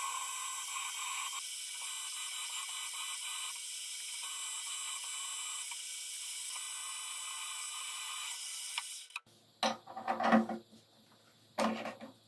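A Fabtec BF 30 Vario drilling-milling machine runs steadily while a twist drill cuts into a steel shaft held in the vise. The sound stops about nine seconds in, followed by a few short, louder clunks.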